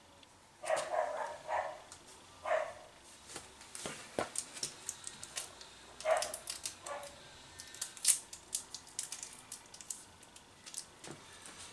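A dog barking in short bursts, a cluster about a second in and a few single barks later, among scattered light clicks and taps.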